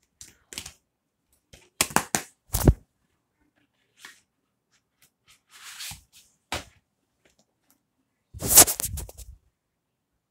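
Plastic DVD cases being handled: several sharp clicks and clacks, with a cluster of clattering near the end the loudest.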